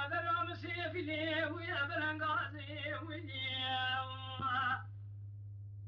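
A solo voice singing long, wavering, ornamented notes over a steady low hum; the singing breaks off about five seconds in.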